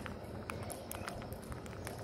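Rose-ringed parakeets pecking rice grains off a wall top: scattered sharp beak taps and clicks, a few a second.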